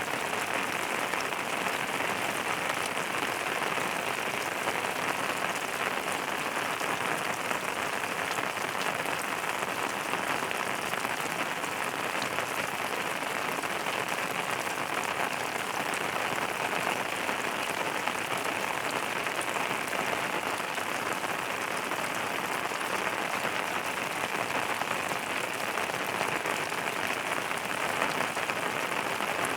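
Steady rain falling on a surface: an even hiss of dense, fine drops that does not let up.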